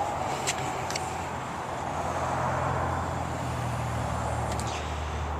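2019 Chevrolet Tahoe's power liftgate opening: a steady motor hum that builds and then eases off as the hatch finishes rising, with a few light clicks from the latch and strut mechanism.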